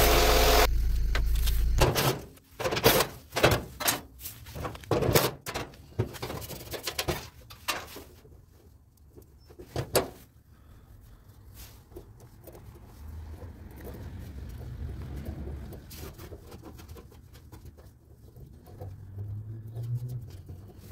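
A motor runs loudly and cuts off about two seconds in. A run of sharp knocks and clatters follows, metal and plastic parts being handled and struck while a dryer is taken apart, thinning out to scattered clicks.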